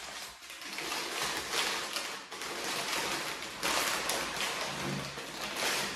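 Brown kraft packing paper crinkling and rustling as it is unfolded by hand, with louder crackles now and then.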